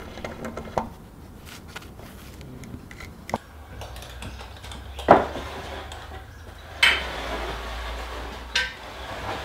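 Knocks and clatter of heavy pine timber being handled and set down on a workbench frame, with a few light clicks and two sharp knocks about five and seven seconds in.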